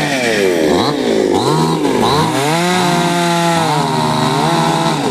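Chainsaw running hard, cutting through a tree; its engine pitch dips and climbs back up several times as the throttle is worked and the chain is loaded.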